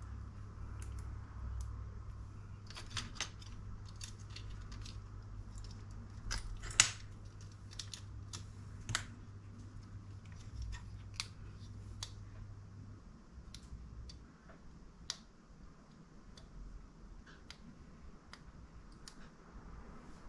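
Scattered small clicks and taps of plastic scale-model dashboard parts being handled and fitted together, with a sharper click about seven seconds in. A steady low hum runs underneath and stops about two-thirds of the way through.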